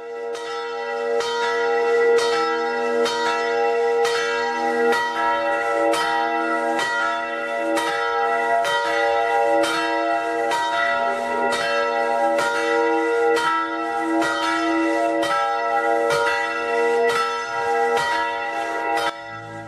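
Church bells ringing, a strike about once a second over long-sustained ringing tones. The sound cuts off suddenly near the end.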